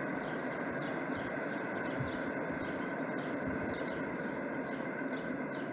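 A bird calling in a quick regular run of short falling chirps, about three a second, over a steady distant rumble from the freight train that has just passed the station.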